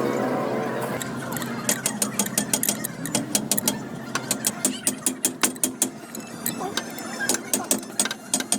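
A run of sharp, irregular clicks and taps from hand-tool work on metal parts, often several a second, starting about two seconds in.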